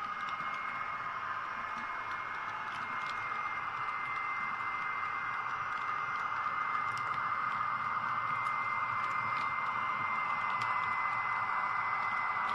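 H0-scale model freight train rolling slowly along the track, propelled by a model ÖBB 2043 diesel locomotive. The locomotive's electric motor and gears give a steady whine, and the wagon wheels make faint irregular clicks over the rail joints.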